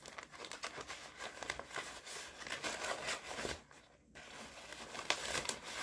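Crinkling and rustling of a wrapper being handled as something is put back into it, with a short pause about four seconds in.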